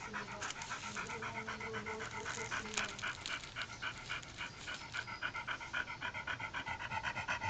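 A dog panting with its mouth open, quick breaths in an even rhythm.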